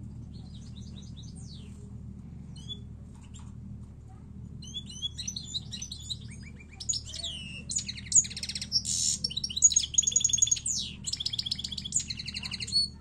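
Caged finch singing: a few scattered twitters at first, then from about four seconds in a loud, fast song of rapid trills, sweeping whistles and buzzy notes that runs on until it stops at the end. A steady low hum sits underneath.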